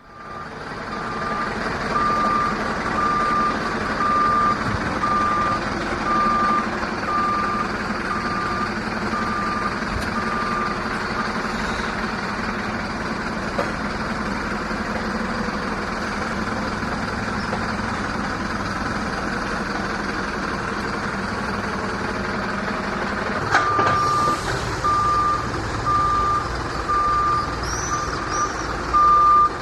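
Truck reversing alarm beeping about once a second over the truck's running engine. The beeping stops for about twelve seconds midway while the engine keeps running, then starts again.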